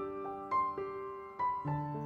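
Background music: a piano playing a slow melody, a few single notes struck and left to ring.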